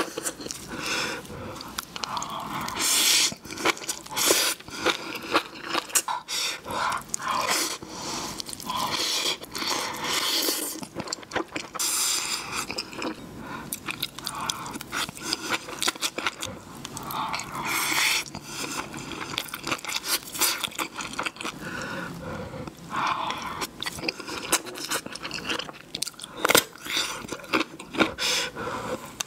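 A person eating close to the microphone: repeated bites and chewing, with crunchy and wet mouth sounds in quick, irregular clicks.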